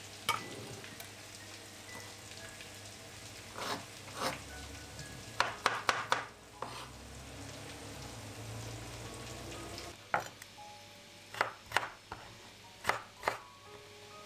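Food sizzling in a pan, with sharp knocks of kitchen utensils scattered through and a quick run of them about five to six seconds in. The steady background quietens about ten seconds in while the knocks go on.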